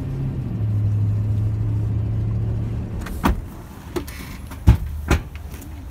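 Car engine and road hum heard from inside the cabin, steady, then easing off about three seconds in as the car slows. Three sharp knocks follow near the end.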